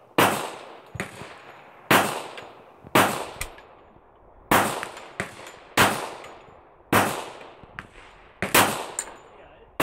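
Handgun shots fired one at a time, about seven in a row, roughly a second to a second and a half apart, each with a short echoing tail.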